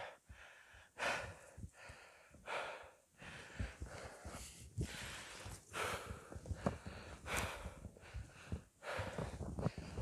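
Heavy breathing close to the microphone, a rasping breath roughly every second, from a person walking uphill through snow.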